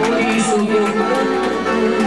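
Live forró band music: held accordion chords over a steady percussion beat with triangle, and a voice singing over it.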